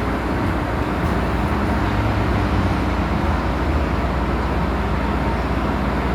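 MTR Tsuen Wan line M-train running between stations, heard from inside the car: a steady, even rumble of wheels on rail and traction noise.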